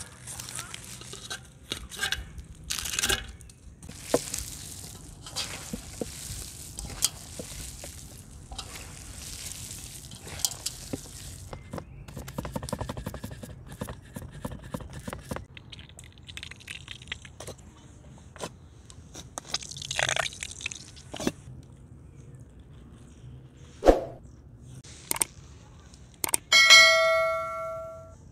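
Close-up cooking handling sounds: clinks and knocks of metal trays and lids, scraping, and hands working food, in a string of short separate events. Near the end a bright ringing notification chime sounds for about a second.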